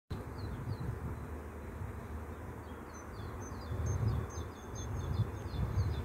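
A honeybee swarm in flight, a low droning hum. A bird chirps over it in quick runs of short falling notes, busier in the second half.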